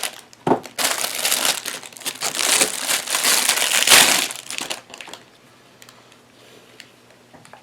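Packaging being crinkled and rustled by hand, loudest about four seconds in, then stopping for a quiet stretch near the end.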